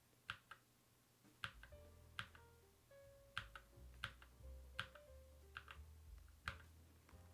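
Single keypresses on a Keychron Q11 mechanical keyboard, about ten sharp clicks spaced irregularly as keys are pressed one at a time. Faint low tones sound underneath.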